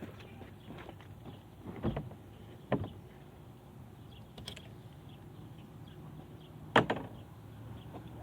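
Scattered knocks and clanks of tools and metal parts being handled during front suspension reassembly: a few sharp hits, the loudest about seven seconds in, over a faint steady background.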